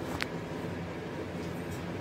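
A steady low hum, with one short sharp click about a quarter of a second in.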